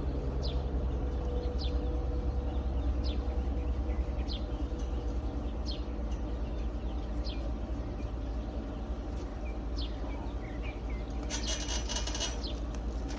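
A bird repeating short, high chirps that drop in pitch, roughly once a second, over a steady low rumble. A brief louder burst of noise comes about eleven seconds in.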